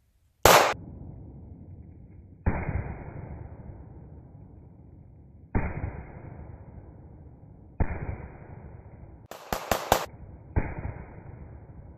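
Handgun firing, five shots about two to three seconds apart, each a sharp crack with a long fading rumble. Just before the last shot comes a quick run of four sharper cracks.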